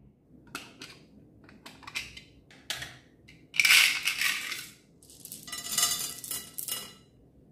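A small plastic bag of beads crinkling as it is handled and pulled open, with a louder rustle about halfway through, then a handful of small plastic flower beads clattering into a glass dish near the end.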